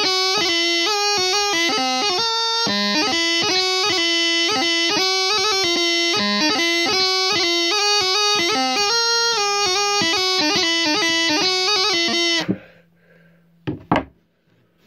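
Bagpipe practice chanter playing a tune, reedy and bright, with quick ornament notes flicked between the melody notes. The tune stops about twelve and a half seconds in, followed near the end by a couple of short knocks.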